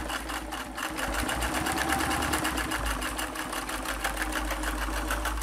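Singer 328K sewing machine running steadily at speed, its needle stitching through six layers of denim with a rapid, even mechanical clatter that stops suddenly at the end. It handles the thickness without labouring.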